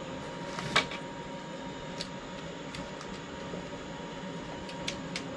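Steady fan-like mechanical hum with a few sharp clicks on top, the loudest about a second in and two smaller ones near the end.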